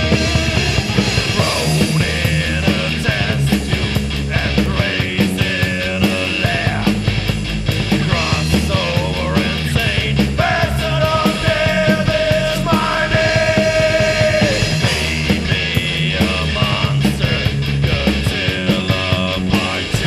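Thrash/heavy metal band recording: distorted electric guitars, bass and drums, with a long held high note from about ten to fourteen seconds in.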